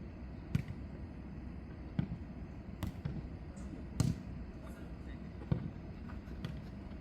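Jokgu ball being kicked and bouncing on the court during a rally: about six separate thuds at uneven intervals.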